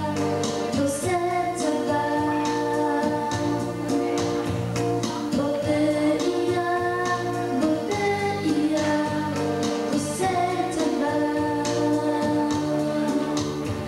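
A girl singing a song into a microphone over electronic keyboard accompaniment with a steady beat.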